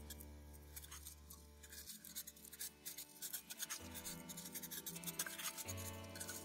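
Jute twine rubbing and scratching in small irregular ticks as it is wound onto a bottle wrapped in a plastic bag, over soft background music whose held chords change about every two seconds.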